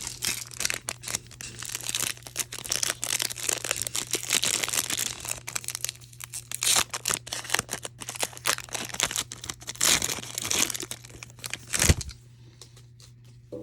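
Foil wrapper of a Pokémon TCG Silver Tempest booster pack being torn open and crinkled by hand, a dense crackling for about twelve seconds. A single knock comes near the end, then it goes quiet.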